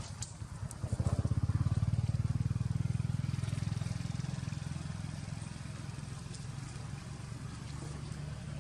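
Motor vehicle engine running, growing loud about a second in and then slowly fading, as of a vehicle passing by.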